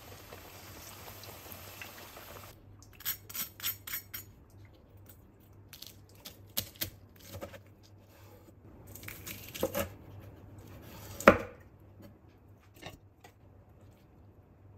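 Battered king oyster mushroom pieces deep frying in hot oil: a steady sizzle that stops suddenly about two and a half seconds in. Then crisp crunches as a crinkle-edged cutter slices through the deep-fried crust on a wooden board, in short runs, with one loud sharp knock about eleven seconds in.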